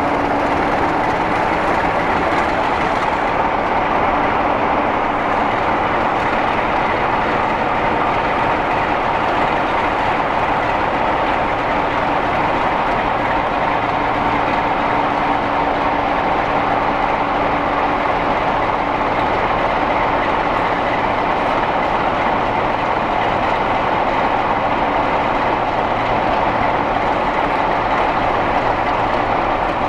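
Diesel locomotive engine running steadily as it moves slowly through the station with a train of coaches.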